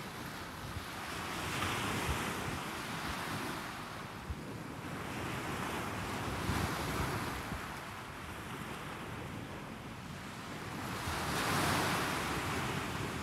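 Small waves breaking and washing up a sandy beach, the surf swelling and fading about every four to five seconds, the biggest near the end, with wind rumbling on the microphone.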